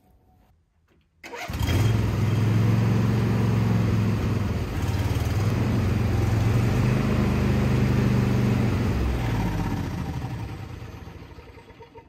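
John Deere LA120 riding mower's engine starting about a second in and then running steadily, quietening gradually near the end.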